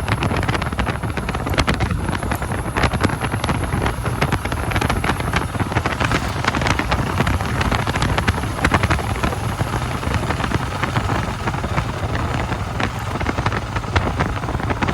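Royal Enfield Himalayan motorcycle's single-cylinder engine running steadily while riding, under heavy wind noise on the microphone.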